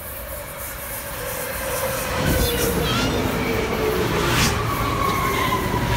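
Budd M3A electric multiple-unit train approaching and running past close by, growing loud about two seconds in, with a motor whine that slowly falls in pitch and a few short wheel squeals over the rumble of the cars.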